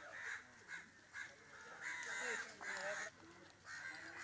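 Birds cawing: a string of short harsh calls, repeated several times, with a longer run about two seconds in.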